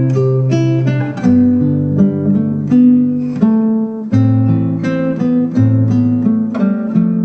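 Background music: acoustic guitar playing a picked melody with many quick plucked notes.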